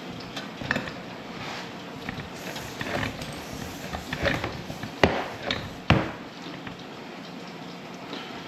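Tools and parts being handled during brake work: scattered clicks and light clanks, with two sharp knocks about five and six seconds in.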